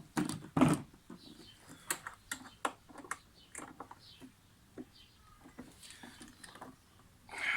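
Scattered light clicks and knocks of lawnmower parts being handled and fitted during assembly, with a louder knock about half a second in.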